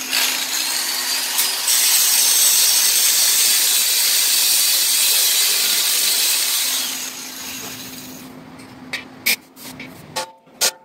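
Hand-held angle grinder grinding a steel tab off a minibike frame, a loud, steady grinding hiss over the motor's hum. About seven seconds in it comes off the metal and the motor spins down. A few sharp clinks follow near the end.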